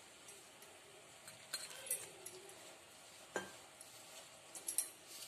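A hand mixing crumbly gulab jamun dough mix in a bowl: faint rustling with a few light, sharp clicks and clinks.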